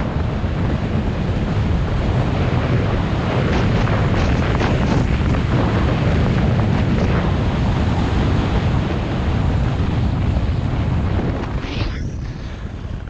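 Loud wind buffeting the helmet-mounted camera's microphone during a fast ski run, with skis scraping over groomed snow. Near the end there is a short hiss as the skier brakes, and the rush dies down as the skier comes to a stop.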